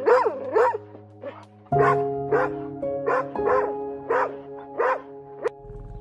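A dog barking repeatedly in short, sharp barks, about two a second, over background music with sustained notes.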